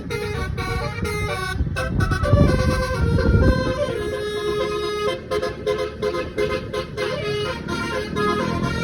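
Multi-note telolet bus horn (a 9-note basuri type) playing a quick melody, its pitch stepping from note to note every fraction of a second. A low engine rumble runs beneath it and swells about two to three seconds in.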